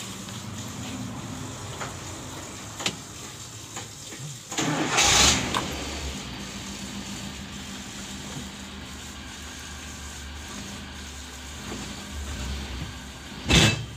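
Suzuki Carry Futura injection van's four-cylinder engine cranked and started about five seconds in, then idling steadily, with a few light clicks before it. Near the end comes one short, loud crack as first gear is forced with the engine running, a gear-crunch the mechanic says is usually from a weakened clutch pressure plate.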